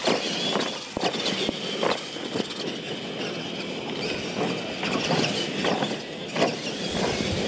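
Radio-controlled monster trucks racing over a dirt course, their motors running hard and tyres churning the dirt, with several sharp knocks as they hit and land from the jumps.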